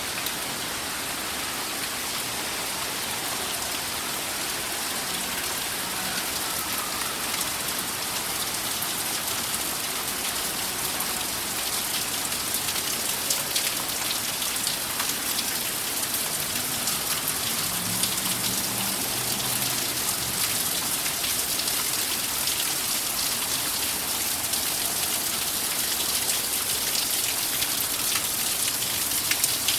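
Steady rain falling: an even hiss with scattered drop patter, growing slightly louder and denser toward the end.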